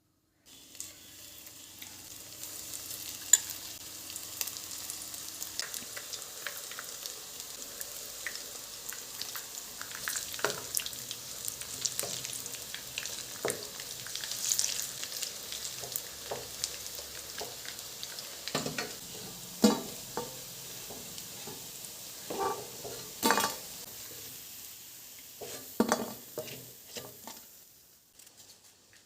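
Food sizzling in a hot pan while it is stirred, with repeated scrapes and knocks of a spoon or spatula against the pan. The sizzle stops about a second before the end.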